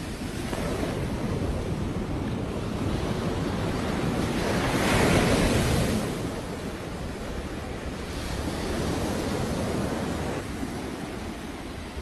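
Sea waves breaking and washing up on the shore in surges. The loudest wave swells and falls about five seconds in, and a gentler one follows a few seconds later.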